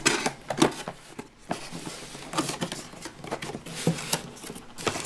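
A cardboard toy box being opened by hand: its flaps are pulled open and a hand rummages inside, giving irregular scrapes, taps and rustles of cardboard.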